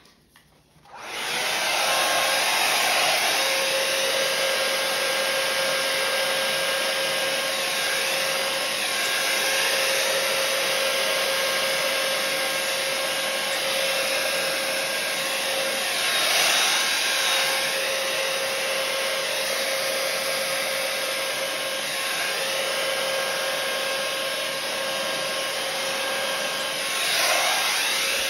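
Handheld hair dryer switched on about a second in and running steadily, blowing wet acrylic paint across a canvas: a rush of air with a faint steady whine, swelling briefly twice.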